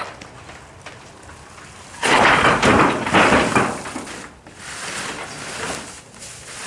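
A large wooden barn door falls flat onto the ground about two seconds in with a loud crash that lasts over a second. Quieter knocks and scraping follow as it is handled and lifted again.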